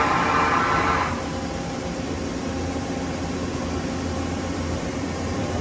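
Mori Seiki MH-63 horizontal machining center powered up and idling, giving a steady machine hum. A louder whirring hiss over the hum stops about a second in.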